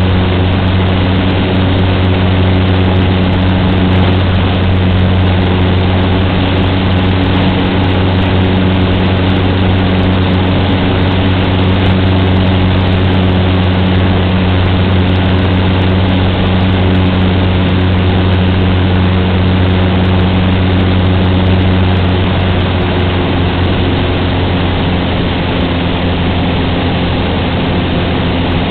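Cessna 150's four-cylinder piston engine and propeller running steadily, a constant droning hum that eases back slightly near the end.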